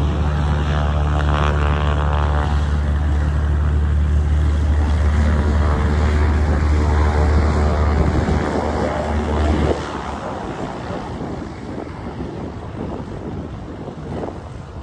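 Light airplane's piston engine and propeller running with a steady drone. Nearly ten seconds in, the low drone cuts off suddenly and the sound drops to a quieter, rougher rumble.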